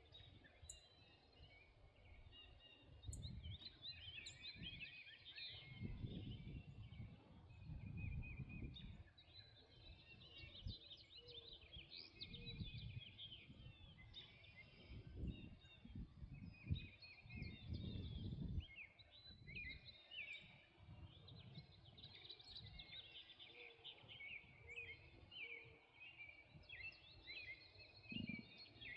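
Dawn chorus: many small songbirds chirping and trilling at once, faint, over a low rumbling that swells and fades every few seconds.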